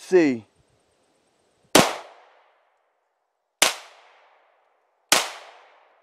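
Three shots from an HK P2000 9mm pistol, about two seconds and then a second and a half apart, each trailing off in a short fading echo.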